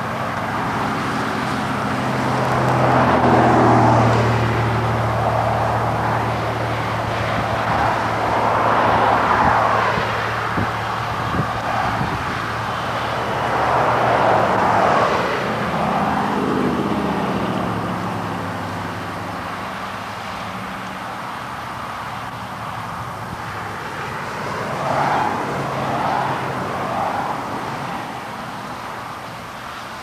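Road traffic: several vehicles pass one after another, each swelling and fading, over a steady low engine hum.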